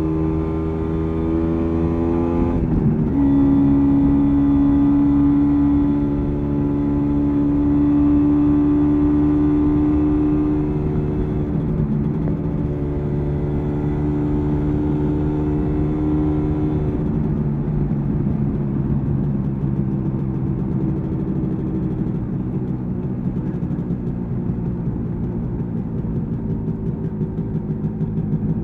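1986 MZ ETZ 250's single-cylinder two-stroke engine under way. The revs climb for the first few seconds, drop abruptly about three seconds in, then hold steady. A little past halfway the pitch falls and the engine runs lower and rougher off the throttle.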